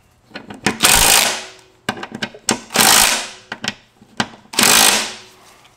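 Cordless impact wrench running the bolts of a drive shaft safety loop in, in three short hammering runs, with small clicks of handling between them.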